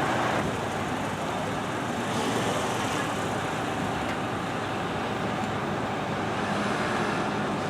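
Steady city street noise with traffic, an even rumble and hiss without distinct events.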